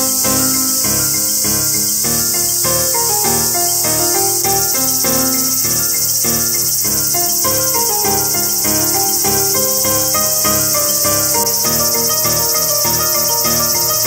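A loud, steady chorus of insects shrilling high, with soft background music of changing melodic notes beneath it.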